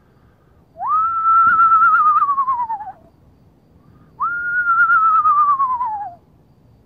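A person whistling two long owl-call imitations, one starting near the beginning and one about four seconds in. Each rises quickly, holds with a slight waver, then slides slowly down in pitch.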